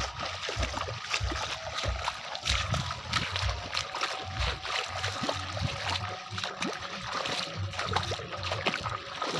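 Water splashing and sloshing, a continuous run of many short splashes.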